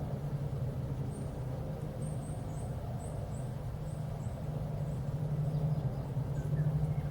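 Steady low engine drone that swells slightly louder toward the end, with a bird chirping a quick series of short high notes in the first half.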